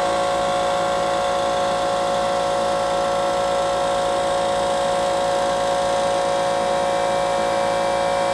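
A motor running steadily with a constant whine.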